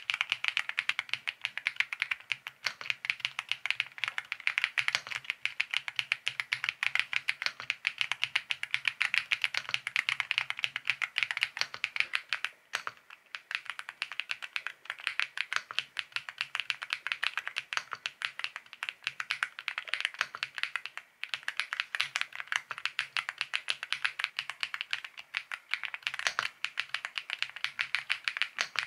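Steady fast typing on an EPOMAKER x Feker Galaxy80 mechanical keyboard with Marble White switches, a gasket-mounted board in an aluminium case: a dense run of keystroke clicks, with short pauses about 13 and 21 seconds in.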